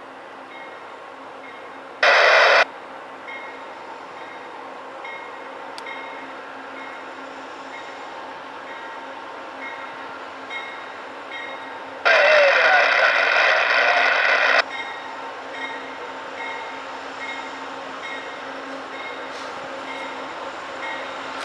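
Amtrak P42DC diesel locomotive sounding its horn as it approaches: a short blast about two seconds in, then a long blast of about two and a half seconds later on. Between the blasts the locomotive runs with a steady low hum, and a bell dings steadily in the background.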